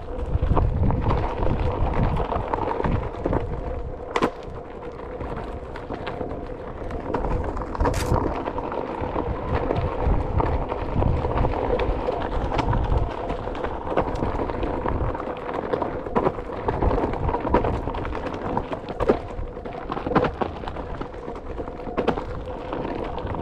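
Onewheel GT rolling along a dirt trail: the tyre rumbling over the ground and wind buffeting the microphone, over a steady whine from the board's hub motor. There are a couple of sharp knocks, about four and eight seconds in.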